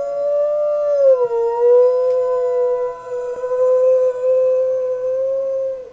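German Shepherd dog howling, one long howl that drops in pitch about a second in, then holds and breaks off near the end. Underneath it, the steady tone of the fire whistle she is howling at.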